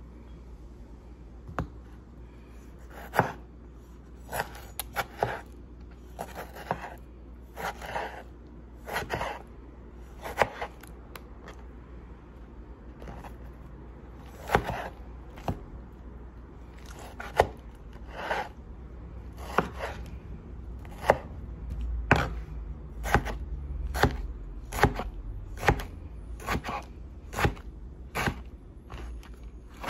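Tomatoes being sliced and chopped with a wide cleaver-style knife on a plastic cutting board: sharp, irregular knife strikes on the board about once a second, coming faster in the second half.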